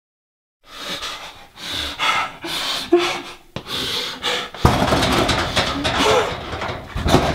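A man gagged with duct tape breathing hard and fast through his nose, starting about a second in. From about halfway on it grows louder, with strained, muffled moans behind the tape.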